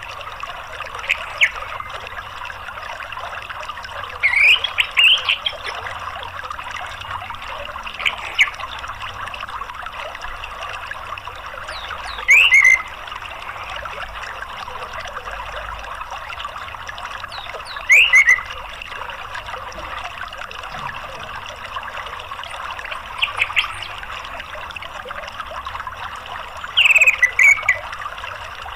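Orange-headed thrush giving short call notes every few seconds, some single and some in quick clusters of several, over a steady trickle of running water.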